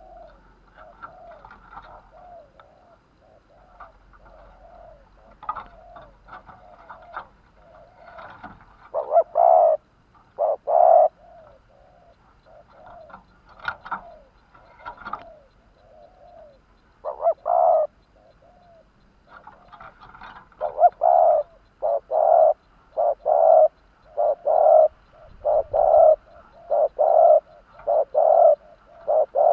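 A decoy spotted dove cooing. Fainter coos come and go at first, with loud phrases about a third of the way in and again a little past halfway. Near the end it breaks into a quick run of loud coos, a bit more than one a second.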